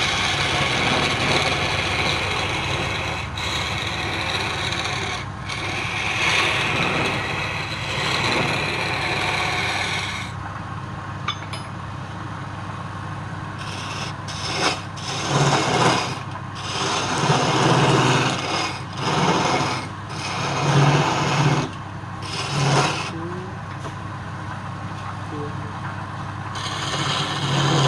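Woodturning lathe running with a steady motor hum while a tool scrapes against the spinning wood: continuous for the first third, then in separate short passes.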